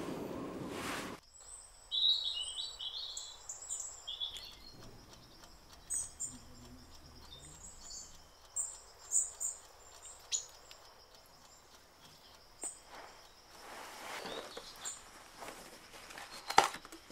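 Birds chirping in short high calls over a faint steady high-pitched tone, after a low rumbling noise cuts off suddenly about a second in. Near the end there is some rustling and one sharp click.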